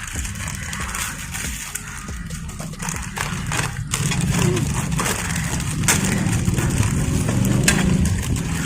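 Potato chips being crunched and chewed, with irregular sharp crackles, likely mixed with crinkling of the chip packets.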